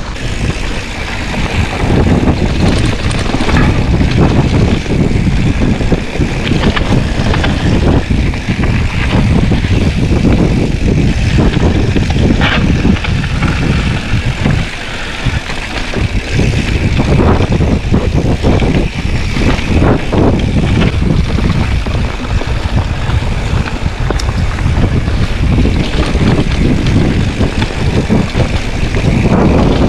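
Mountain bike ridden along a dirt singletrack: a loud, steady rush of wind on the microphone and tyre noise, with scattered knocks and rattles from the bike over bumps in the trail.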